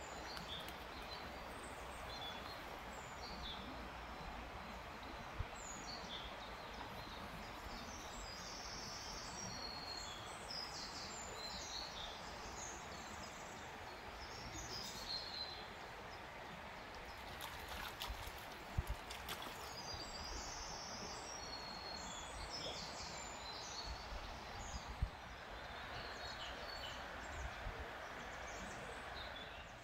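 River water running with a steady rush, with birds singing in short high phrases through most of it. A few brief knocks stand out, the sharpest about two-thirds of the way in.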